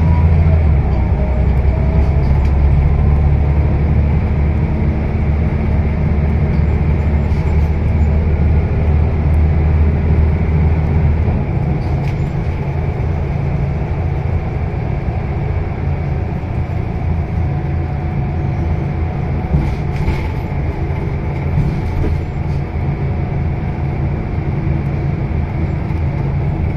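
Scania L94UB city bus driving, heard from inside the saloon: a deep engine drone under steady road noise. The heavy low drone lightens about eleven seconds in, and the bus keeps running.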